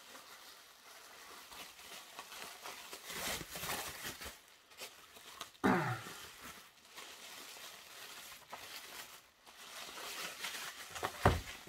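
Plastic bubble wrap crinkling and rustling as hands unwrap a boxed model train coach, with a short thump near the end.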